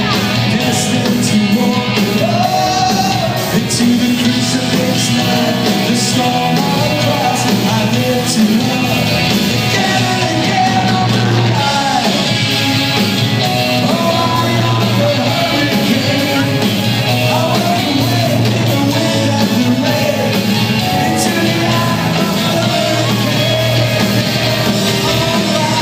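Live rock music: a band playing with guitars and a steady bass, with singing and shouted voices over it.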